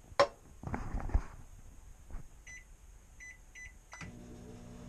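Microwave oven being started: a sharp click and a brief clatter, a few short keypad beeps, then about four seconds in the oven starts running with a steady low hum.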